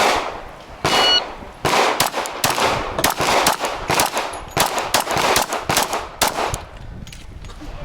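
A shot-timer start beep about a second in, then a Glock pistol firing a rapid string of about a dozen shots over roughly five seconds.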